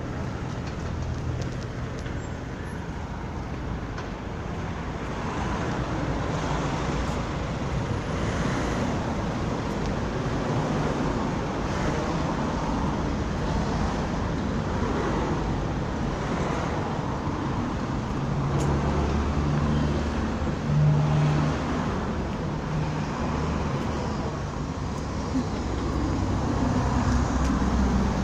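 Road traffic: car engines running and passing close by, with a low engine hum from vehicles that swells and fades throughout.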